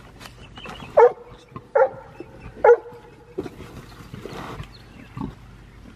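An animal barks three times, short and sharp, about a second in and then twice more within two seconds, each bark well above the quiet background.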